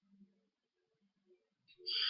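Near silence, then a short breathy exhale near the end.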